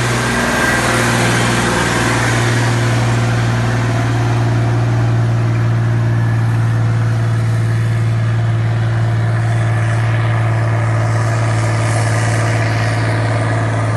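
BMC Pro 827 truck's diesel engine running at a steady speed, a constant even drone with no change in pitch.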